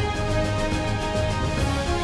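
Theme music with a steady beat and bass.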